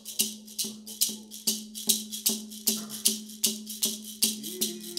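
Percussion accompaniment for a women's dance song: a rattle shaken in a steady beat, about two and a half strokes a second, over a low ringing tone. A voice slides up into a held note near the end.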